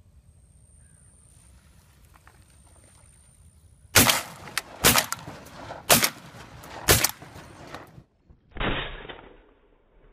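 Shotguns firing at flushing ducks: four loud shots about a second apart starting about four seconds in, with fainter shots between them, then a duller fifth shot near the end.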